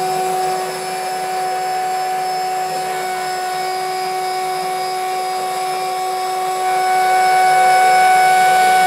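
CNC engraving spindle running at a steady high whine while a carbide D-bit cuts into 2-ply ABS label stock, with the scratchy hiss of the cut underneath. It gets a little louder about seven seconds in.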